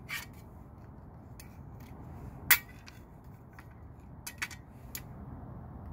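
Plastic-cased main circuit breaker handled and turned over on a metal panel cover: scattered light clicks and knocks, the sharpest about two and a half seconds in.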